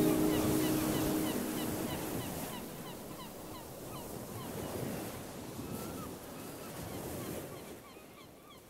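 The tail of a background music track fading out into a steady rushing noise with faint short chirps, which dies away gradually.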